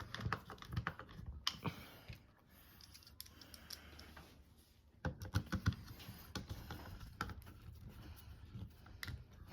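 Light, irregular clicks and taps of small bolts and parts being handled and screwed in by hand, with a quieter lull in the middle and a cluster of clicks about five seconds in.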